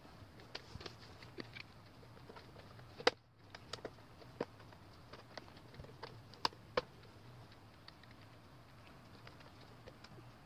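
LG 24MK430H monitor's plastic case being pried open with a plastic opening tool: scattered faint clicks and snaps as its clips let go, the sharpest about three seconds in and two more a little after six seconds.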